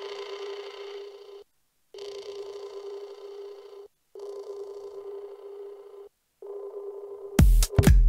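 A sustained electronic synth note, one steady pitch with a buzzy stack of overtones, held for about a second and a half and repeated every two seconds with short gaps. It grows duller in the later repeats as its EQ is changed. Near the end the full tech house loop comes in, led by a steady four-on-the-floor kick drum.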